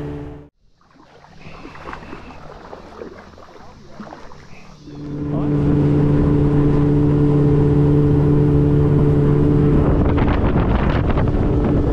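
Wooldridge Alaskan boat's motor running at a steady speed with wind on the microphone. It cuts off abruptly about half a second in, a few seconds of much quieter sound with light knocks follow, and the engine comes back at the same steady pitch about five seconds in.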